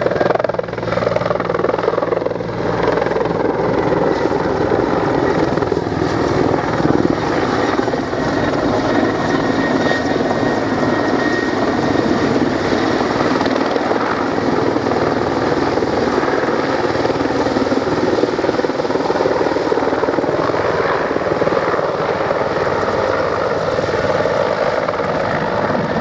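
Mil Mi-24V Hind attack helicopter in flight, its turbine engines and rotor running loud and steady.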